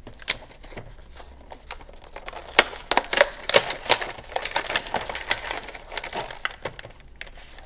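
Clear plastic blister packaging being pried and pulled off its cardboard backing card, a run of irregular sharp clicks and crackles of stiff plastic, busiest about three seconds in.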